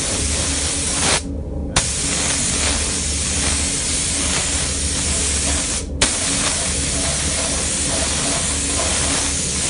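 Gravity-feed paint spray gun hissing steadily as it sprays coating onto a metal part. The hiss cuts out twice when the trigger is released: for about half a second a little over a second in, and briefly near six seconds. A steady low hum runs underneath.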